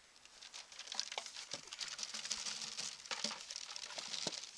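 Coarse compost leftovers (twigs, bits of wood, peanut shells) tipped and shaken off a wire-mesh compost sieve into a bucket: a dense crackling patter of small pieces falling, starting about half a second in.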